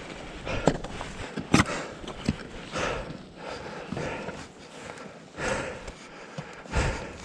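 A climber's heavy breathing in swells every second or two, with a few sharp knocks and clicks of boots and gear on rock.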